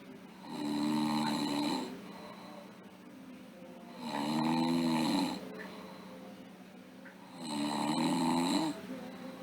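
A sleeping girl snoring: three pitched snores about three and a half seconds apart, each lasting just over a second, with softer breathing between them.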